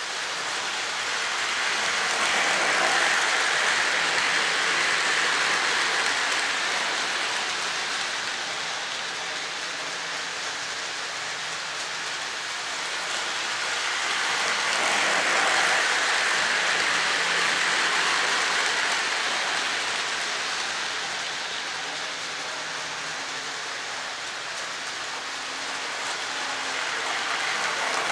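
Lionel O-gauge model train, a diesel locomotive hauling coal hoppers, rolling around a loop of track with a steady hissing rumble of wheels on rail. The sound swells and fades about every twelve seconds as the train comes round past close by, growing loud again near the end.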